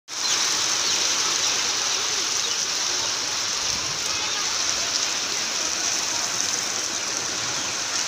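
Heavy storm rain pouring down steadily, a dense even hiss.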